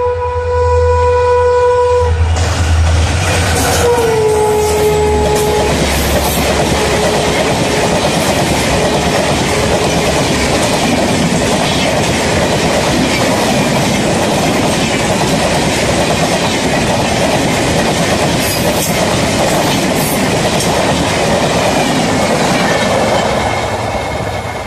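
Diesel locomotive sounding its horn as it approaches, its engine humming deeply, then a second horn blast about four seconds in that drops in pitch as the locomotive passes. Then a long steady rush of LHB passenger coaches going by at speed, with wheel clatter over rail joints and a few sharp clicks.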